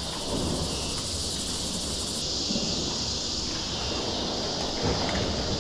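A steady, high-pitched chorus of insects, with a low rumble underneath.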